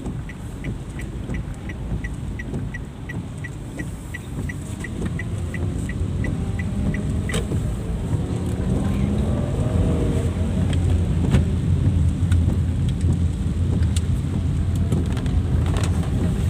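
Car turn-signal ticking steadily inside the cabin, about three ticks a second, cutting off with a click about seven seconds in. Then the car's engine and tyres grow louder as it gathers speed, under heavy rain on the car.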